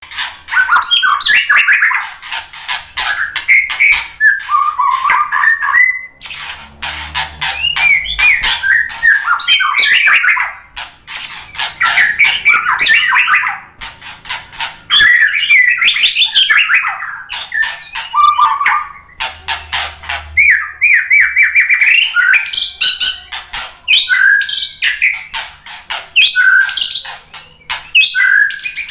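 White-rumped shama singing loud, varied song phrases with rapid trills and many sharp clicking notes, in runs of a few seconds broken by brief pauses.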